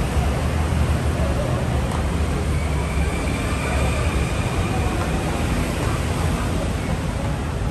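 Busy city street at night: a steady low rumble of passing traffic, with faint voices of people nearby.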